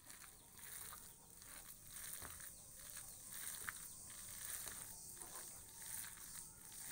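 A hand squeezing and mixing a wet mash of shredded potato and onion for aloo pakora in a glass bowl: faint, irregular squelching about twice a second, with a couple of light clicks.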